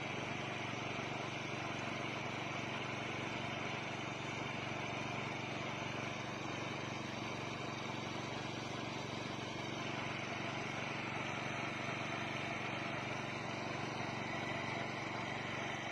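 An engine running steadily at idle, a constant hum that does not change.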